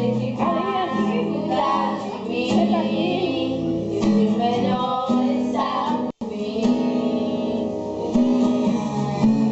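Music: singing with guitar accompaniment. The sound cuts out for an instant about six seconds in.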